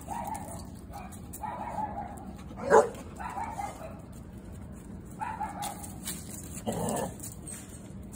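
Dog barking in a steady series, about one bark every two seconds, with one much louder, sharper bark nearly three seconds in.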